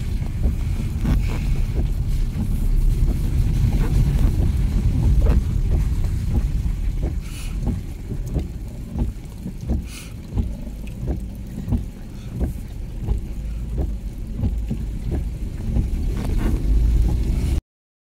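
Car driving on a wet road, heard from inside: a steady low rumble of engine and tyres with scattered light ticks, cutting off suddenly near the end.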